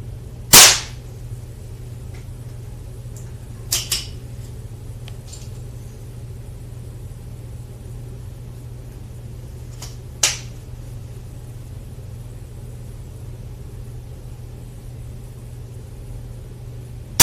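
A Predom Lucznik .177 spring-piston air pistol firing with a sharp crack about half a second in, and again at the very end. In between come a few lighter clicks: a quick pair around four seconds in and one more around ten seconds, over a steady low hum.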